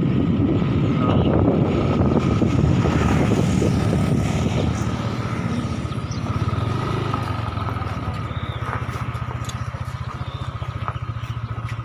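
Motorcycle engine running at low speed, then settling into an even idle about halfway through.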